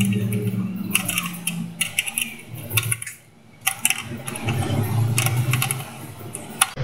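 Adjustable steel wrench turning a small nut on a battery charger's terminal: a run of sharp metallic clicks and scrapes as the wrench works the nut. A low hum comes in at the start and again about four seconds in.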